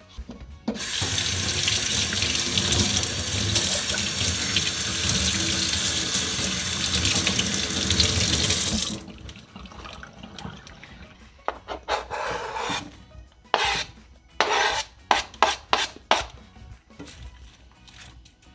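Kitchen tap running hard into a stainless steel sink as green onions are rinsed under it, then shut off after about eight seconds. A string of short, separate rinsing and handling sounds follows.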